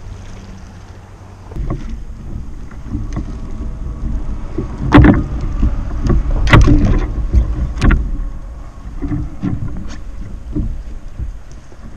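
Wind buffeting the microphone over a kayak on open water, with a run of sharp knocks and clatters on the plastic kayak hull in the middle, the loudest two about a second and a half apart.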